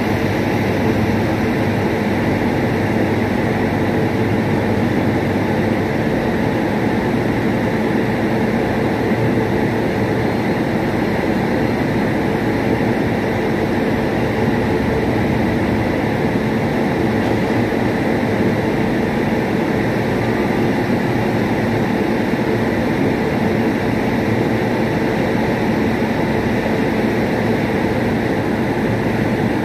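Steady, loud machinery hum of a train standing at the station, with a constant drone that does not change.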